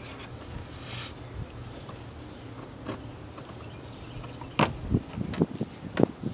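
Plastic door trim being handled and fitted: a few sharp clicks and knocks, most of them in the second half, over a steady low hum.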